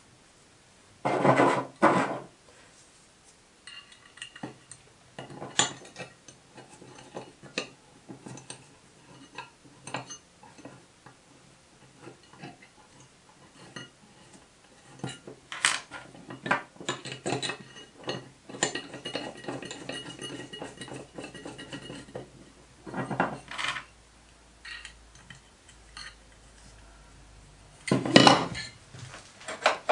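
Aluminium bar sections and small steel screws being handled and fitted together on a wooden bench, making intermittent metallic clinks and knocks. Louder knocks come about a second in, around two-thirds of the way through, and near the end.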